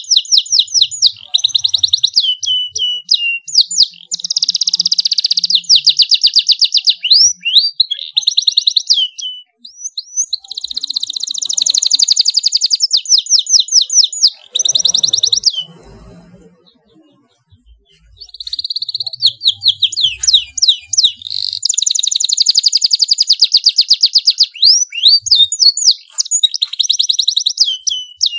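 Domestic canary singing loudly in long, rapid trills and rolls of high repeated notes, broken by quick rising and falling glides. The song stops for about two seconds a little past the middle, then resumes.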